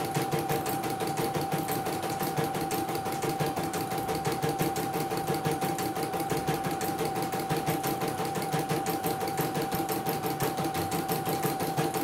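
CNY portable computerised embroidery machine stitching: a steady, rapid run of needle strokes over a constant motor whine.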